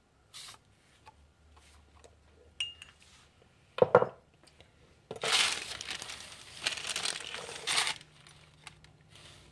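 Kitchen handling sounds: a small glass clink with a brief ring, a single loud knock, then about three seconds of paper rustling as a parchment-lined cake pan is slid across the paper-covered counter.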